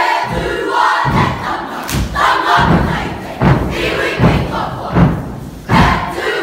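Kapa haka group performing a haka: many voices shouting the chant together in short bursts, with stamps and body slaps thudding in time about once a second.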